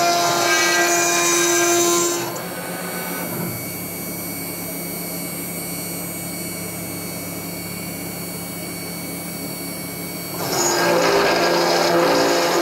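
Mechmate CNC router spindle milling S355MC steel plate with an endmill, the cut making a loud dense grinding noise. About two seconds in the cutter lifts out of the steel and only the spindle's quieter steady hum is left; near the end it cuts back in and the loud cutting noise returns.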